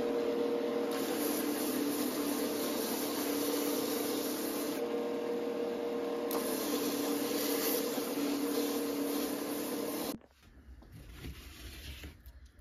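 Electric sanding machine running with willow wood held against it: a steady motor hum under a hiss of abrasive grinding the wood, with the pitch shifting slightly as the load changes. It cuts off suddenly about ten seconds in.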